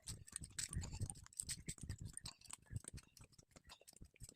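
Rapid, irregular clicking and ticking, with a low rumble in the first second.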